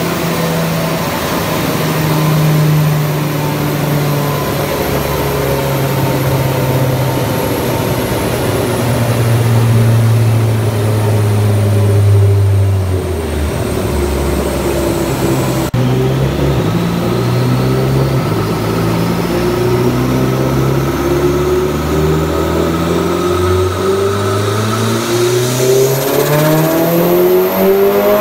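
Mitsubishi Lancer Evolution X's turbocharged 2.0-litre four-cylinder engine on a chassis dyno, tuned for 30% ethanol pump fuel and 1.9 bar boost. Its revs wind slowly down over the first half, then, after a sudden break, climb steadily in a long pull under load with a faint whine rising alongside.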